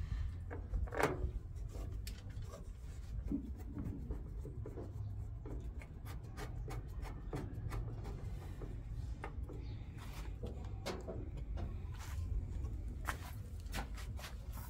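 Scattered light clicks, taps and rubbing of hands and a screwdriver working on a washing machine's plastic control panel, some louder knocks about a second in and again near the end, over a steady low background rumble.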